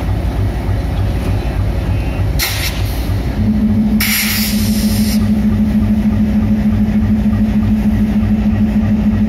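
Diesel locomotive engine running: a loud low rumble that throbs about three times a second. About three seconds in a steady low hum joins it, and two short hisses come at about that time.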